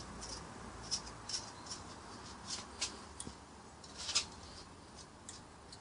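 Small irregular clicks and ticks from hands packing grease into a brake caliper guide-pin dust boot and handling the greased pin.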